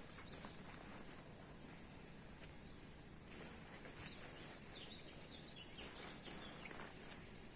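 Steady high-pitched drone of a chorus of insects such as crickets, with a cluster of short, faint chirping calls about five to six seconds in.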